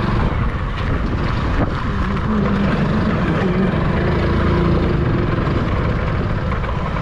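Steady low rumble of a vehicle engine and road noise as the vehicle drives along a rough dirt track.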